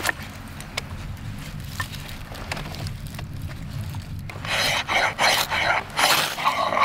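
Knife spine scraped down a ferrocerium rod over wood shavings to throw sparks for lighting a fire. A few faint handling clicks come first, then several quick, loud, hissing rasps start about four seconds in.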